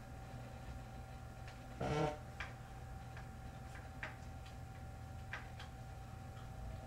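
Light clicks and taps of RAM modules and computer parts being handled, with a brief louder scrape about two seconds in, over a steady faint electrical hum.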